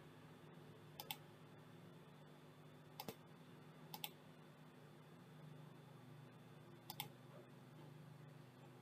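Computer mouse button clicked four times, each click a quick press-and-release pair, over a faint steady low hum.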